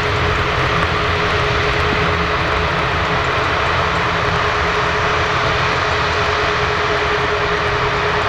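Airbus A340-600's four Rolls-Royce Trent 500 jet engines running steadily at taxi power as the aircraft lines up, an even rumble and hiss with a single steady whine underneath.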